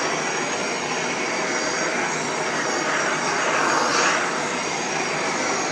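Hand-held propane torch burning with a steady hiss that swells a little near the middle, as its flame is swept over the vinyl-wrapped panel to warm the metal.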